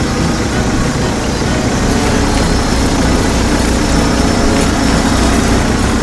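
A heavy vehicle engine running steadily at an even level with a deep rumble, with no change in speed.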